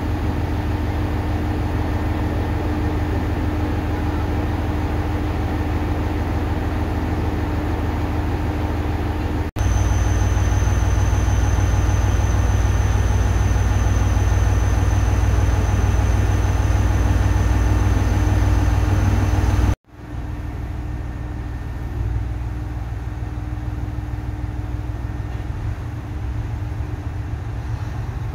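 ET122-1000 Setsugekka diesel railcar idling while standing: a steady low engine rumble with a constant hum. The sound jumps abruptly twice, about a third and two thirds of the way in, and is loudest in the middle stretch, where a thin high steady whine sits over the rumble.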